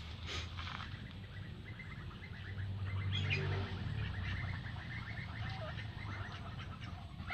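A flock of Muscovy ducks making soft, quick chirping calls, a steady run of short high notes.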